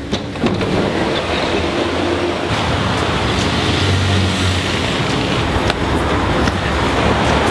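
City street noise that starts abruptly: a steady traffic rumble with scattered clicks and knocks.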